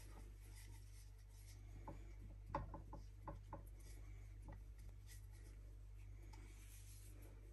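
Faint rubbing and a short run of soft taps, loudest about two and a half seconds in, as hands press a rope of dough onto the rim of a metal cooking pot to seal it, over a steady low hum.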